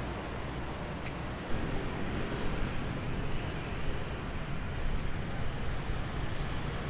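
City street ambience: a continuous wash of road traffic with vehicles passing. It turns more uneven and a little louder about a second and a half in.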